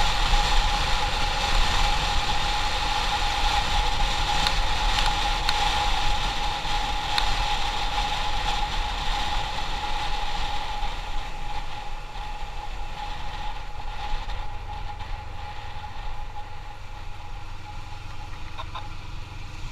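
Motorcycle riding along, its engine running with a steady whine over a low, fluctuating rumble, growing gradually quieter over the second half.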